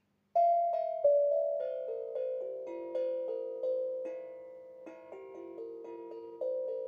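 Cheap steel tongue drum (glucophone), its tongues filed to retune it, played as a run of struck notes that ring on and overlap one another.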